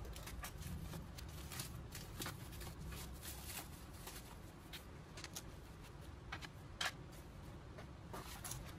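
Rustling and light clicking of packaging and parts being handled as a flat-pack shoe rack kit is unpacked, with one sharper click about seven seconds in.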